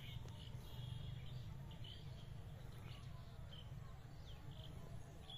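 Short high bird chirps, a few each second, over a steady low rumble.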